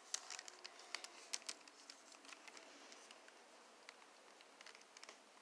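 Faint, scattered clicks and taps of a resin ball-jointed doll's body and limbs being handled and turned over, most frequent in the first couple of seconds.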